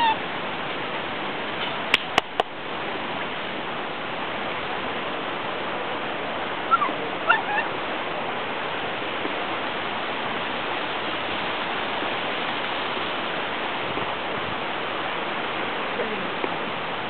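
Steady rushing noise, with a few sharp clicks about two seconds in and two or three brief high squeaks around seven seconds.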